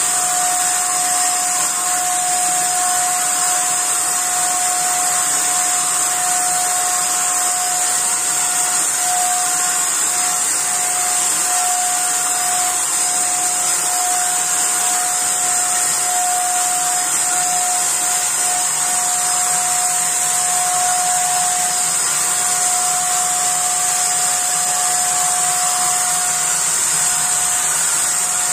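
Asian Paints TruCare handheld electric paint sprayer running continuously while spraying distemper: a steady motor whine over an airy hiss.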